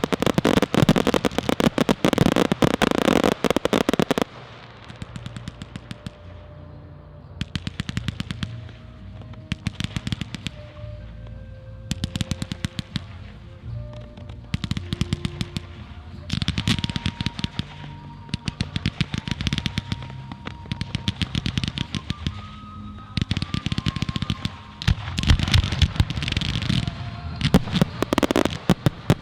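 Fireworks display: a dense crackling barrage for the first four seconds, then repeated clusters of rapid crackles and bangs every second or two, with music playing underneath.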